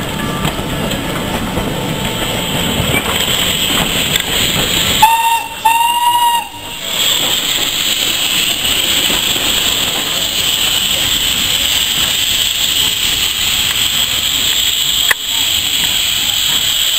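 Steam locomotive's whistle gives two short blasts about five seconds in, the second a little longer. They are followed by a steady loud hiss of escaping steam. Before the whistle, a low rumble of the train rolling past.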